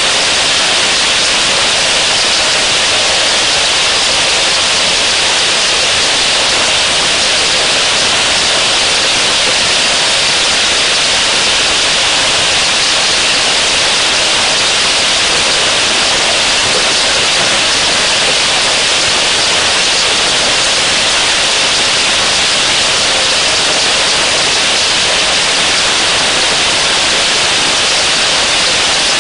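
Rain falling steadily on a waterhole: a dense, even hiss that never changes in level.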